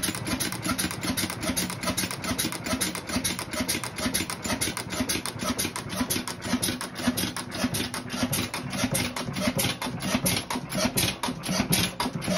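Bamford 5 hp stationary engine running steadily, with a rapid, even ticking over its low hum.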